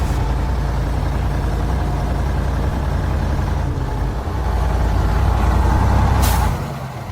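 Logging truck engine labouring under load in mud, with a steady deep rumble that swells a little past the middle. About six seconds in comes a short hiss, and the engine drops off sharply right after it.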